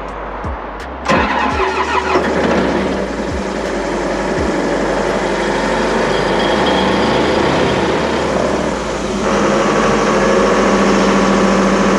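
A few clicks, then about a second in the engine of a towable diesel air compressor starts and runs steadily, off load to warm up before air is drawn. About nine seconds in it gets louder and settles into a steady hum.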